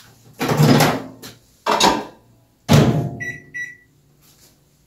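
A microwave oven being loaded and set: a clatter of the door and dish, then the door shut with a thunk, then two short high keypad beeps.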